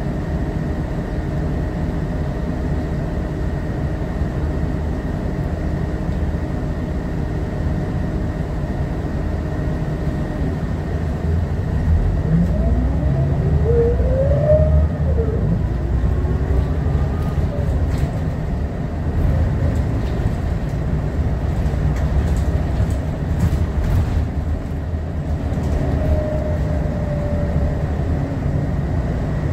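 Scania L94UB city bus with a ZF Ecomat automatic gearbox, heard from inside the cabin. It runs with a steady low idle rumble for about the first ten seconds, then pulls away: the engine and driveline pitch rises and drops back with the gear changes, and the sound gets louder. Light clicks and rattles come as the bus rolls on.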